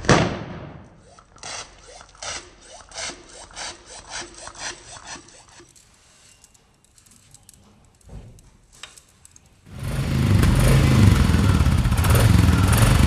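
A balloon bursts right at the start, followed by a few seconds of rhythmic rubbing strokes and a single thump. About ten seconds in, a Royal Enfield Bullet's single-cylinder engine comes in running loud and steady, with a low exhaust note.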